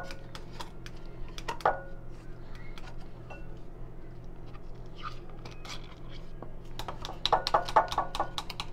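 Utensil clicking and scraping against a glass mixing bowl as cream cheese is scraped in from its foil wrapper. There are sharp knocks at the start and about a second and a half in, and a quick run of clinks near the end.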